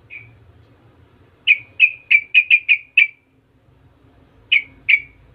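Caged yellow-vented bulbul calling: one short note, then a rapid run of six sharp chirps, then two more chirps near the end.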